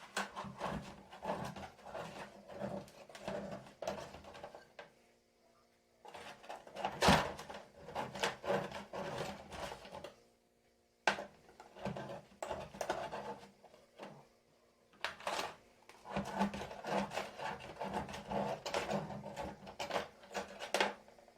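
Freshly baked mini empadinhas being loosened and worked out of their baking tins: bursts of scraping, knocking and clattering with short pauses between. Two sharper knocks come about 7 and 11 seconds in.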